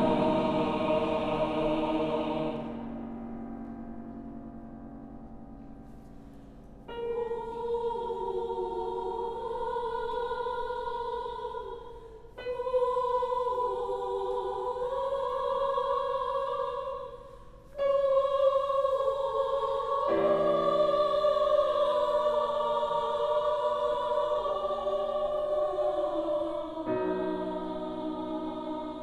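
Choir singing a slow sacred choral work in sustained chords. A held chord dies away over the first few seconds in the hall's reverberation. The choir then re-enters with new held chords about seven, twelve and eighteen seconds in, and lower voices join at about twenty seconds.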